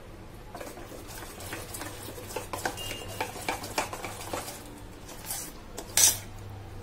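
A spoon stirring thick gram-flour batter in a stainless steel bowl: quick scraping with rapid clinks against the bowl for the first few seconds, then one louder clack about six seconds in.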